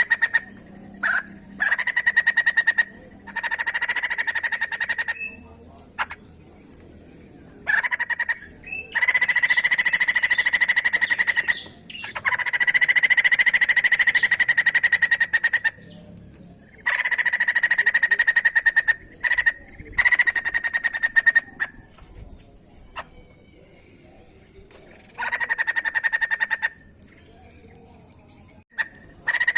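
White-crested laughingthrush (poksay jambul) giving loud bouts of rapid, buzzy chattering. Each bout lasts from a fraction of a second to about four seconds, with short pauses between them.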